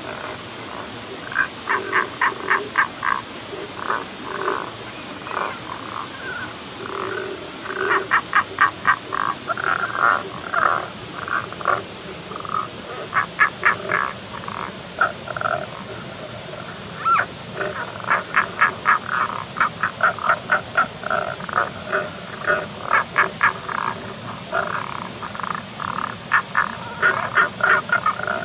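Tago's brown frogs (Rana tagoi) calling: snore-like croaks in quick trains of about five pulses a second, each train lasting a second or two and repeated every few seconds, over a steady hiss.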